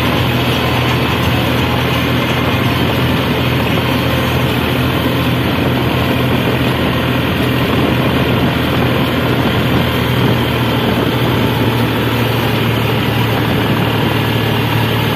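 New Holland 5510 tractor's diesel engine running steadily under load, heard from inside the cab while the tractor works a straw reaper (tudi machine).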